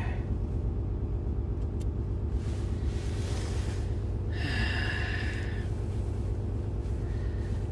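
Steady low rumble of a Ram heavy-duty pickup idling, heard inside the cab. A person breathes out sharply twice, about two and a half and four and a half seconds in.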